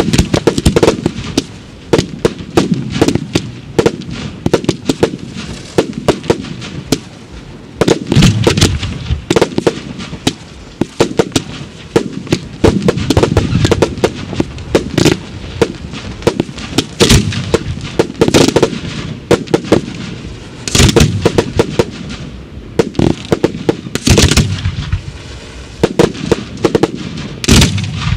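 Fireworks display of mortar-fired aerial shells: a dense, continuous run of bangs and crackling, with louder clusters of reports every few seconds.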